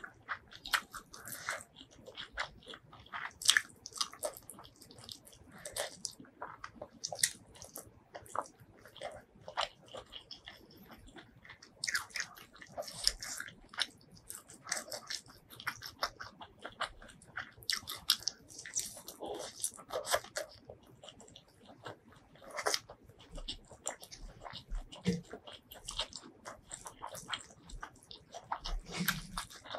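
Close-miked, wet chewing, biting and lip-smacking of a person eating spicy duck curry and rice by hand, with the squish of fingers mixing rice into the curry. The sounds come as many irregular short smacks and clicks.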